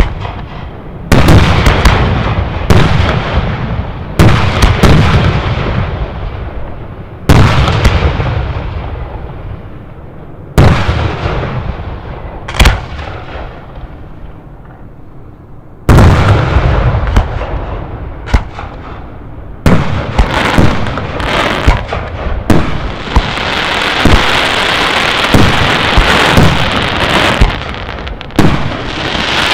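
Aerial firework shells bursting one after another, each a sharp bang followed by a long rolling echo, with several close together around 16 to 20 seconds in. In the last few seconds a dense, steady crackling takes over, mixed with further bangs.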